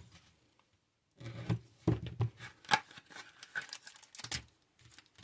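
Taped foil booster packs being cut apart and handled, giving irregular snips, clicks and crinkles that start about a second in.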